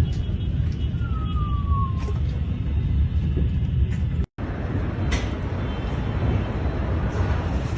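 Loud outdoor rumble and wind-like noise with a single falling tone lasting about a second, starting about a second in. About four seconds in the sound drops out for a moment and a similar rumble resumes, with a few sharp clicks.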